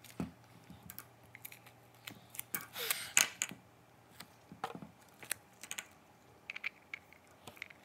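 Duct tape being pulled off the roll in short rasping rips and pressed around a cup, with scattered clicks and crinkles of handling; the longest, loudest rip comes about three seconds in.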